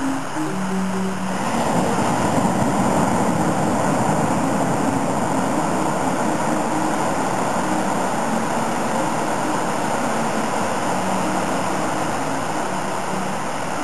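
Surf washing onto a sandy beach: a steady rush of broken waves that swells about a second and a half in and then holds.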